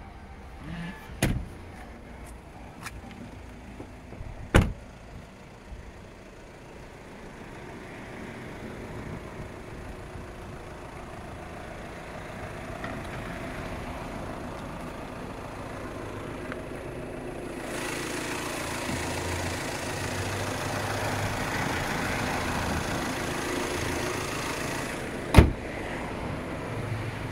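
Clicks and a solid clunk from handling a car's seats and doors, the clunk about four and a half seconds in, typical of a car door shutting. Then steady outdoor background noise that grows louder, and another sharp clunk near the end.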